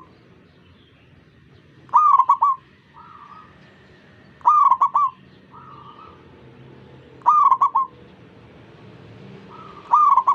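Zebra dove (perkutut) cooing: four loud phrases, each a quick run of clipped notes, about every two and a half seconds. Fainter answering coos from other doves come between the phrases.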